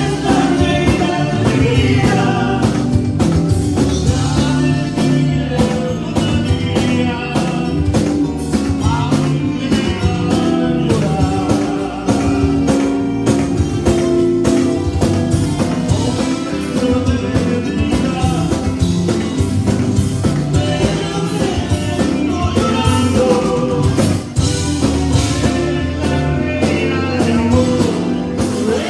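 A live Tejano conjunto band plays a song with a steady drum beat. Button accordion, electric guitars, bass and drum kit are heard, with vocals sung through the PA.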